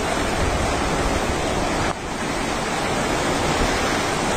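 Steady rushing noise of a swollen, flooded river in spate, with a brief dip about two seconds in.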